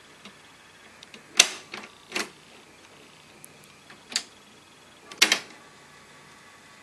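Cassette deck transport keys being pressed and the tape mechanism clunking as it engages: a series of sharp mechanical clicks, two or three close together about a second and a half in, another about four seconds in, and a quick double clunk just after five seconds.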